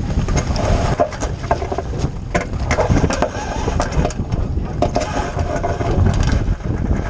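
Wind buffeting the microphone on a 49er skiff as it tacks, with many sharp knocks and rattles from the crew crossing the deck and from the rigging.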